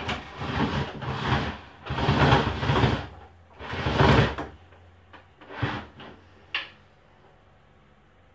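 Sliding window rolling in its track as it is pushed open and shut in several long scraping strokes, ending with a sharp click of the latch.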